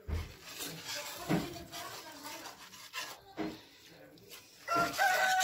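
Wire whisk stirring milk, flour and sugar slowly in a nonstick pan to keep lumps from forming: soft, irregular scraping and swishing with a few light clicks. Near the end a rooster starts crowing, louder than the whisking.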